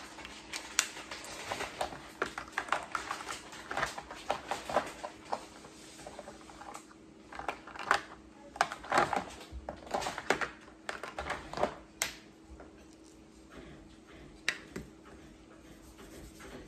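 Plastic felt-tip markers clicking and clattering: a cap pulled off and pushed back on, and markers rattled against each other while being sorted through in a plastic case. The clicks come in quick clusters, busiest in the first few seconds and again in the middle.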